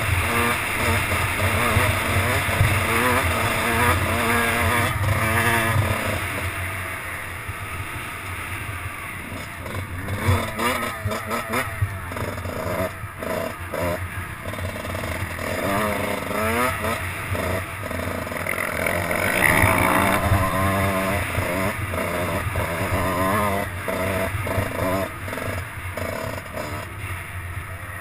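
Dirt bike engine running under the rider, revving up and down as the throttle is worked, heard close from a helmet-mounted camera. It eases off for a few seconds after about six seconds in and picks up again later.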